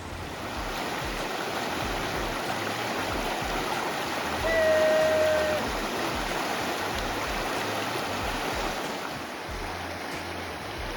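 Fast-flowing river water rushing steadily in a strong current. About halfway through, a single held call lasting about a second rises above it.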